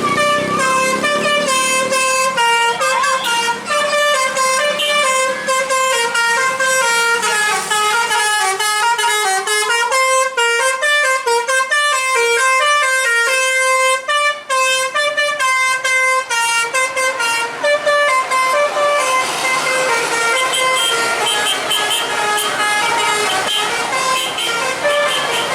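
Bus telolet horn, a set of musical air horns, playing a long melody of short stepped notes that quickens in the middle. Near the end the notes fade under a rushing noise.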